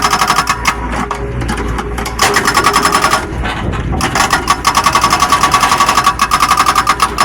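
Excavator-mounted hydraulic breaker hammering: rapid, evenly repeated metallic blows with a ringing tone. It comes in three bursts with short pauses between, over the steady low hum of the excavator's engine.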